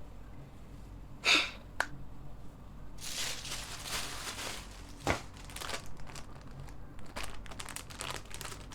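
Close handling noise: rustling and crinkling, with a short sharp swish about a second in, a longer rustle in the middle and a run of quick scratchy ticks near the end.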